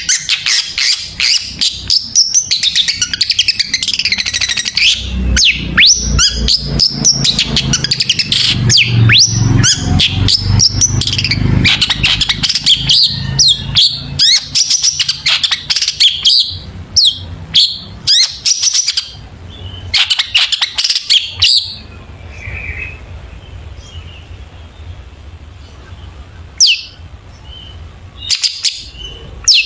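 Long-tailed shrike (cendet) singing its full mimicry song: a fast, dense run of varied chirps and whistles that breaks off about 21 seconds in, followed by a few sharp single calls near the end. A low rumble sits under the song for several seconds early on.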